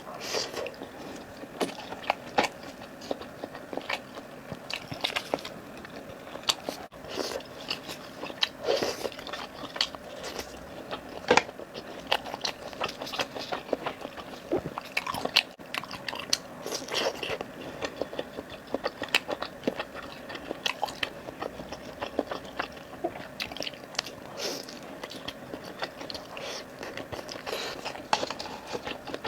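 Close-miked chewing and biting of food, a steady run of irregular wet smacks and crunchy clicks from the mouth.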